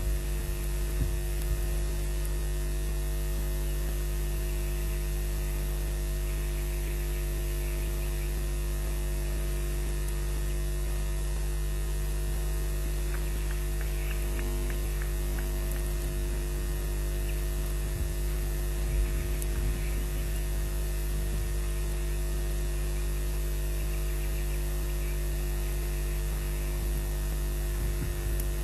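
Steady electrical mains hum heard through a live nest camera's audio feed: a low buzz made of many evenly spaced tones, over a constant layer of hiss.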